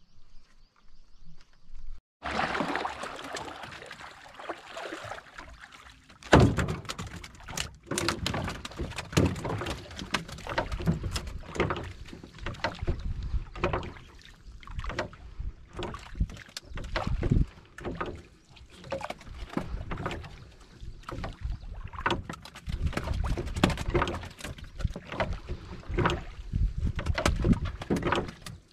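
Wind on the microphone and water slapping against a small wooden fishing boat, with irregular knocks and rustles as a hook line is hauled hand over hand into the hull. It starts about two seconds in.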